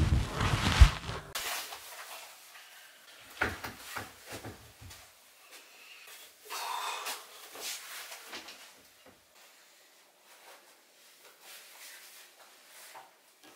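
Wardrobe door opening with a sharp knock in the first second, then scattered soft knocks and cloth rustling as a shirt is handled and put on, fading to very little sound in the last few seconds.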